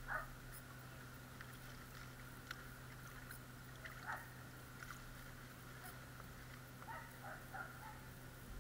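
Faint water sloshing and dripping as a plastic gold pan is dipped and swirled in a tub of water, over a steady low hum. A few faint short chirps come about 4 seconds in and again near 7 seconds.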